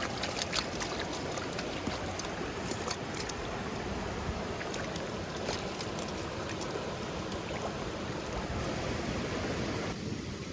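Mountain stream water rushing steadily over rocks, with a few sharp clicks in the first three seconds. The sound changes abruptly near the end.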